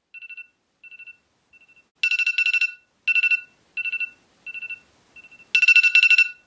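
Smartphone alarm ringing: short bursts of rapid high-pitched beeps repeating about every two-thirds of a second. It jumps suddenly louder about two seconds in and again near the end.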